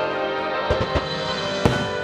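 Music with long held notes, cut through by three sharp booms of aerial fireworks shells bursting: two close together just before a second in, and another near the end.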